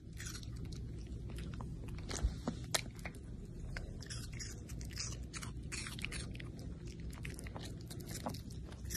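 Long-haired dachshund puppy biting and chewing close to the microphone: a run of small irregular clicks and crunches, two of them louder between two and three seconds in, over a steady low hum.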